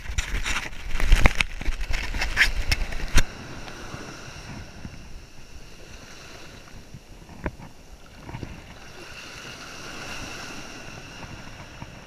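Loud scuffing and knocking for about the first three seconds, then a steady hiss of surf with one sharp knock midway.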